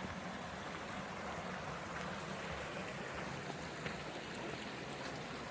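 Flowing water of a nearby creek: a steady, even rushing.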